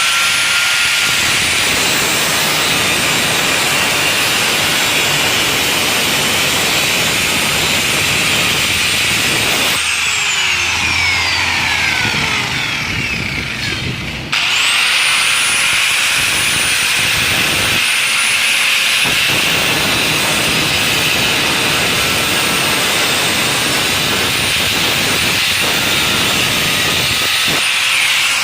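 Electric angle grinder working on steel: it runs at full speed with a high whine over a loud rough hiss, is switched off about ten seconds in and winds down with a falling whine, then starts up again a few seconds later and runs on.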